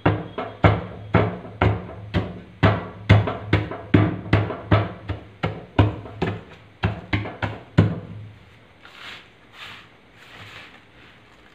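Hard chunks of reformed gym chalk being crushed under a small hand-held tool against a stone surface: a crunching thud about two to three times a second. About eight seconds in the pounding stops, and a few softer swishes follow as the crushed chalk is swept.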